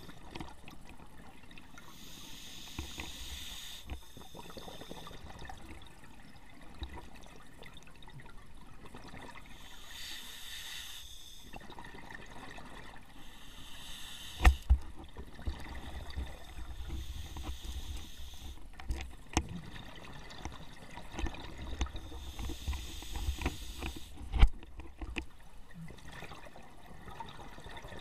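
Scuba diver's regulator exhaust bubbles, a hissing gurgle in a short burst every several seconds, heard muffled through an action camera's underwater housing. A few sharp knocks against the housing, the loudest about halfway through and again near the end, with low handling rumble between them.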